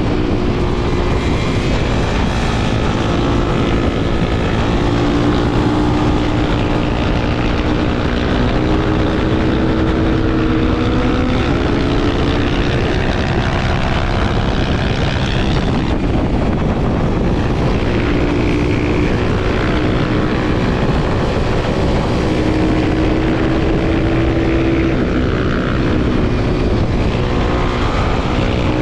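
Honda XR250 Tornado single-cylinder four-stroke engine running under way, its note climbing in short rises and dropping back again and again as it is revved and shifted through the gears, over a steady rush of noise.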